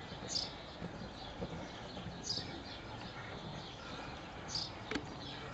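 Horse cantering on a sand arena, its hoofbeats dull and muffled, while a bird gives short chirps about every two seconds. A single sharp click sounds near the end.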